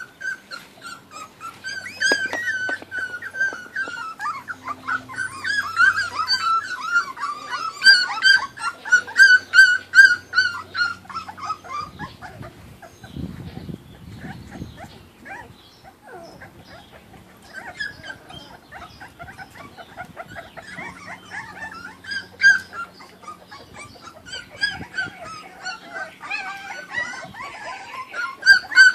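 Kuvasz puppies whining and squealing in high, wavering, overlapping cries while they feed together at a bowl, with small clicks and smacks of eating. The cries die down about halfway and start up again a few seconds later.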